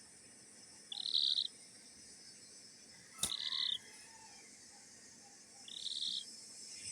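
Kikiriki micro-bantam chicken giving three short, high trilling chirps, about two and a half seconds apart: contented "happy" sounds. A single sharp click comes just before the second chirp.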